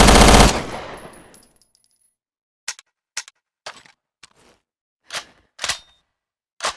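Thompson submachine gun firing a full-automatic burst that cuts off about half a second in, its echo tailing away over about a second. After a short silence come about eight short, sharp mechanical clicks and clacks at uneven intervals.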